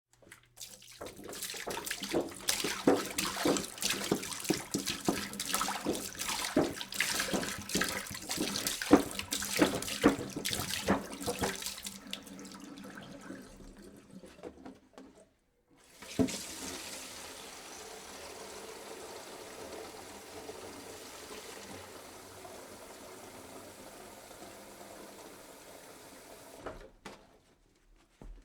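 Water pouring into a jug: uneven, splashy pouring for about twelve seconds that then fades and stops briefly, followed by a quieter, steadier stream that cuts off near the end.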